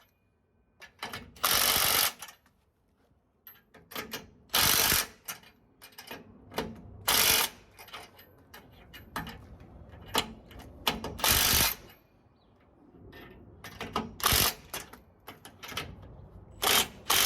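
Leaf-spring mounting bolts being tightened with a tool: about half a dozen short, loud rasping bursts of roughly half a second each, with scattered clicks and knocks of metal parts between them.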